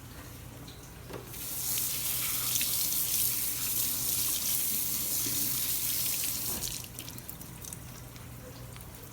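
Kitchen sink tap running, rinsing the chopped bok choy; the water comes on about a second in and shuts off near seven seconds.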